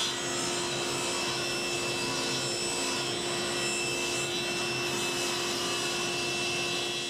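Laguna Fusion F2 table saw running steadily while its blade is slowly raised up through the plywood base of a crosscut sled, cutting the kerf slot from below: a steady motor tone with the hiss of the blade in wood.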